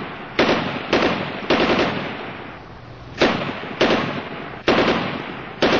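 Gunfire: a string of short bursts of automatic fire, each starting sharply and trailing off in an echo, about seven in all, roughly half a second to a second apart, with a longer pause about two seconds in.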